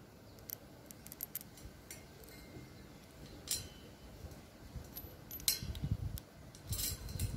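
Light metallic clinks and taps of a screw, washer and screwdriver being handled against a galvanised steel wall-spike strip, with a few louder clinks about three and a half, five and a half and seven seconds in.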